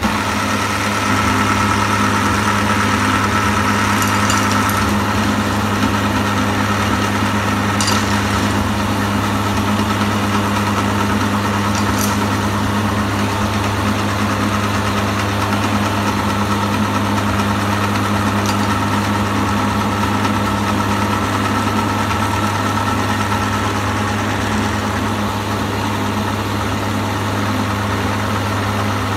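Motor-driven meat grinder running with a steady low hum while it grinds hard candy balls, with a few sharp cracks in the first half.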